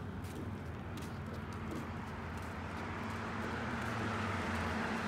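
Residential street traffic: a vehicle's low engine hum and tyre noise, growing louder toward the end.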